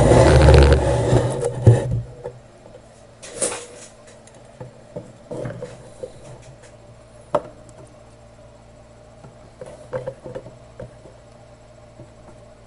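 Handling noise at an electronics workbench: a loud rustling, knocking burst for about the first two seconds, then scattered light clicks and taps of tools and parts, over a faint steady hum.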